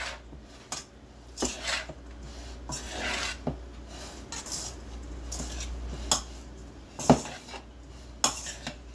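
A metal spoon scraping and clinking against a stainless steel bowl while salt is mixed into moist cottage cheese curds, with a sharp clink about seven seconds in.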